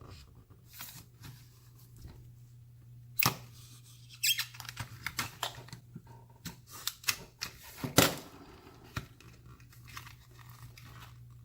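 Plastic retail blister packaging being cut and pulled open to free a small padlock: irregular crinkling and sharp snips and clicks, the loudest about three and eight seconds in, over a faint steady hum.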